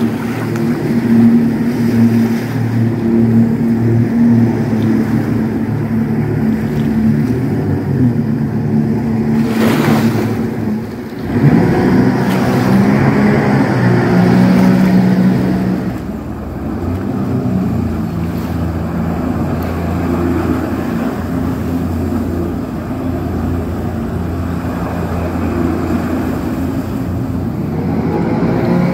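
Supercharged Rotax engine of an aluminum jet boat running at speed, its pitch shifting up and down with the throttle, over the rush of water from the jet and hull. A short drop in level near the middle is followed by a rising rev.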